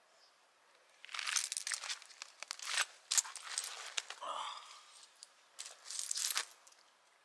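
Crinkling, crackling handling noise in several bursts, with a brief falling pitched sound a little past halfway.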